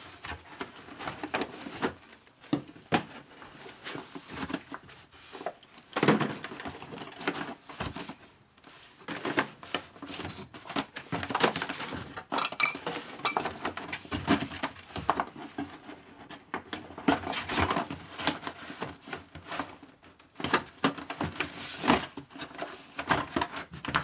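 Rummaging through cardboard boxes and paper mailing envelopes: irregular rustling and crinkling of paper and cardboard, with scattered knocks and light clinks as the packages are shifted and set down.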